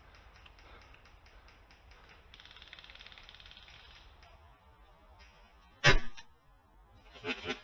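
A single sharp shot from a JG VSR/Bar-10 spring-powered bolt-action airsoft sniper rifle about six seconds in, after a few seconds of faint background noise; a voice starts near the end.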